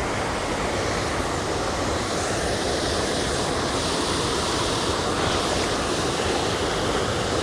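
Steady rushing noise, even throughout with no distinct events.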